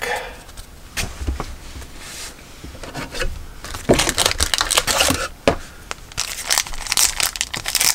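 Trading card pack wrapper crinkling and tearing, with scattered clicks and taps of cards being handled; the crinkling is thickest in the second half.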